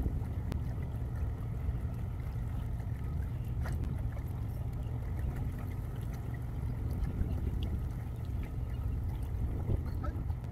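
Steady low rumble of wind buffeting the microphone on an open riverbank, over faint lapping of water against the rocky shore.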